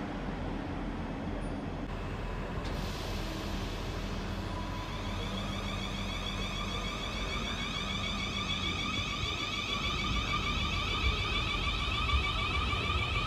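South Western Railway multiple-unit passenger train pulling out of the platform: a steady low rumble of the train, with a whine from its drive building from about three seconds in as it gathers speed.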